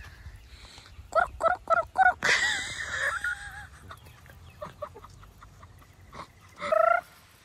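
Young chickens calling in a pen: a run of four short clucks about a second in, a harsher squawk just after, a few faint calls, and one louder call near the end.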